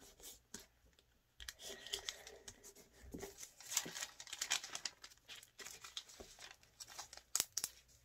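A sheet of origami paper rustling and crinkling as it is folded and creased by hand, with a couple of sharp crackles near the end.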